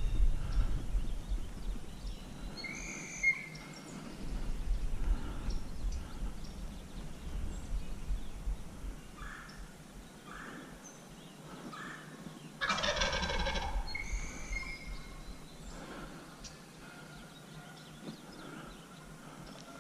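A wild turkey gobbler gobbling once, about halfway through: a single rapid, rattling call lasting just over a second.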